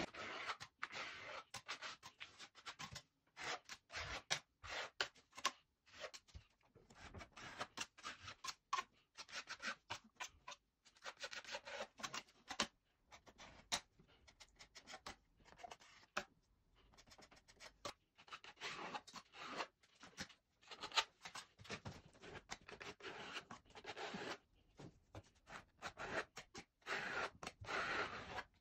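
Metal spatula scraping and smoothing plaster adhesive along plaster mouldings on a wall, in short irregular strokes.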